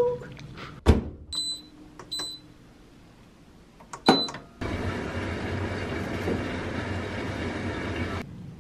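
A front-loading washing machine being started: a thump about a second in, short beeps from its control panel as the buttons are pressed, then a steady running noise from the machine that begins about four and a half seconds in and cuts off near the end.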